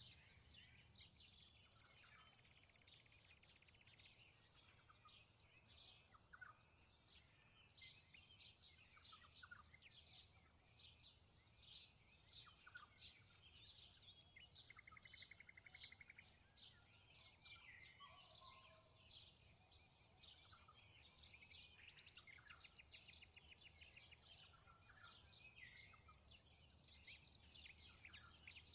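Faint chorus of many small birds chirping and singing, short overlapping calls with a few rapid trills, over a steady high hiss and a faint low rumble.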